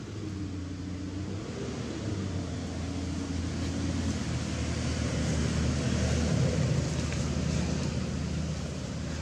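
A motor engine running with a steady low hum, growing louder to a peak about six seconds in and then easing off.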